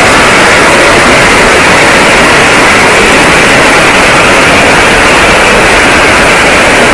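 Heavy rain pouring down: a loud, steady hiss.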